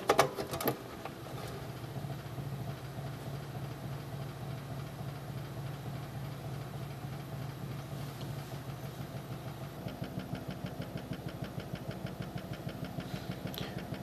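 New ExeGate computer power supply running, its cheap cooling fan giving a steady hum with vibration, which becomes a rapid pulsing rattle about ten seconds in; the owner blames the cheap fan. A few clicks as the unit is handled at the start.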